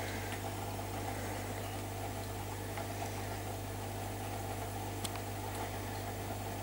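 A steady low mechanical hum with a hiss over it, and one faint click about five seconds in.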